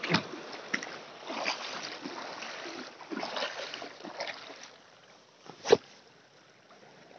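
Shallow seawater splashing and sloshing in irregular swells with a few small clicks, dying away after about four and a half seconds, followed by a single sharp knock.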